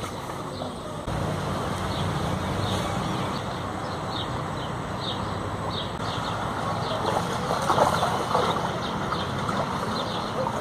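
Steady outdoor background noise: a low hum that steps up about a second in, with short high chirps repeating every second or so and a louder stretch of noise near the end.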